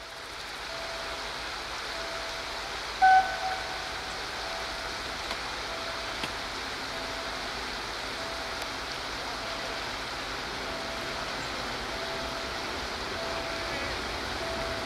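Shallow river running over stones: a steady rushing. A brief loud chirp about three seconds in, and a faint short tone repeating roughly once a second.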